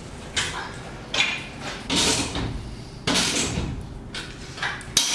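Handling noises from assembling a steel-framed bike shelter's roof: a run of short scrapes and rustles, about one a second, with a sharp click near the end.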